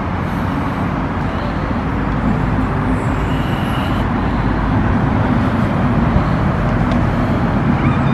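Steady low rumbling background noise outdoors, even throughout with no distinct events.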